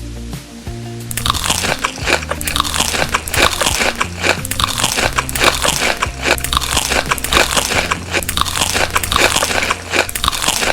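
Loud crunching as someone bites and chews crisp food close to the microphone, starting about a second in. Background music with a steady bass line plays underneath.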